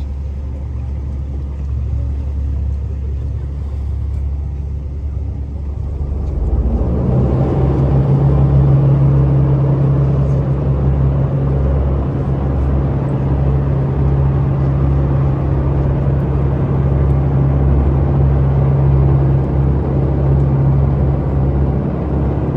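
Tour boat's engine running with a steady low drone. About seven seconds in it grows louder and a strong steady hum joins it.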